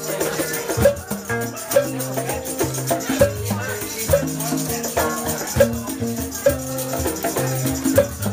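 Background music with a steady beat and a stepping bass line.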